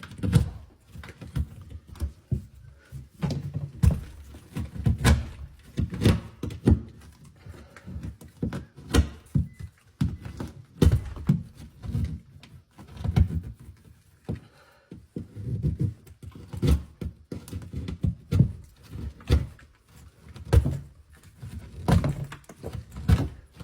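Repeated irregular thuds and knocks, one or two a second, in a small room.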